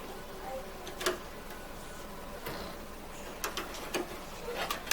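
A handful of sharp, irregular clicks and taps, like hard plastic and metal parts being handled and fitted together, with the clearest near the end.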